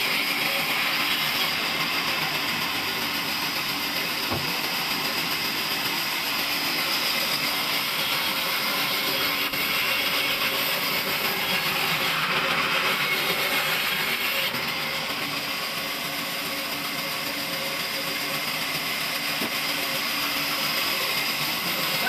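Large band saw ripping a log lengthwise, the blade cutting through green wood with a steady, loud saw noise. It eases slightly about two-thirds of the way through.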